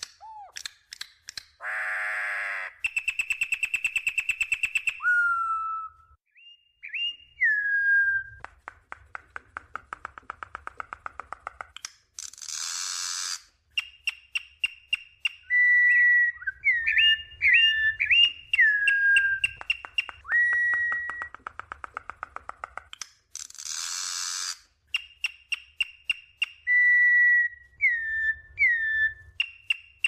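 Campo troupial (corrupião) singing: clear whistled notes, many sliding down in pitch, mixed with fast rattling trills and two harsh, raspy bursts near the middle and about three-quarters through.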